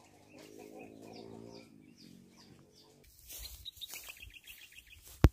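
Small birds chirping in quick repeated short calls, with a longer, lower animal call about half a second to two seconds in. After about three seconds a rushing noise and a rapid run of chirps take over, and a single sharp click comes just before the end.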